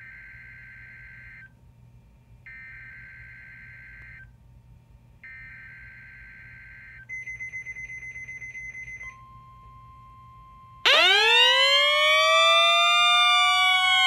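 NOAA Weather Radio weekly test signal from Realistic Weatheradio Alert receivers. Three buzzy digital header bursts of about two seconds each are followed by a fluttering burst and then the steady weather-radio warning alarm tone for about two seconds. About eleven seconds in, the receivers' own alarm sounds much louder: a siren that sweeps up in pitch and then holds, set off by the alarm tone.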